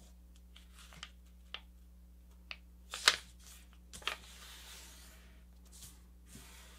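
A sheet of paper being folded and creased by hand: a few short, sharp crinkles, the loudest about three seconds in, with a soft rustle of hands sliding over the paper shortly after.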